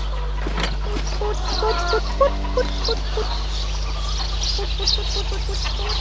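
Domestic hens clucking, loudest about two to three seconds in, with scattered short high chirps of small birds.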